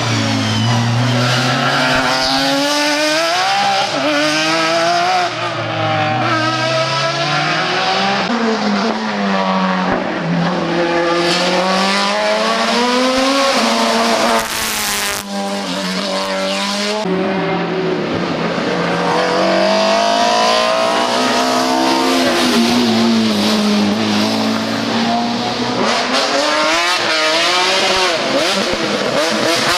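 Race car engine at full throttle, its pitch climbing through each gear and dropping back on the shifts and braking, over and over.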